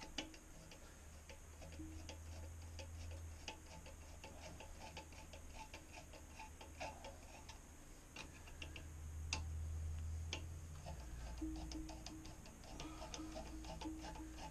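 Faint, irregular clicking of a hand tool tightening the bidet seat's mounting-plate bolt, several small clicks a second, over a low hum.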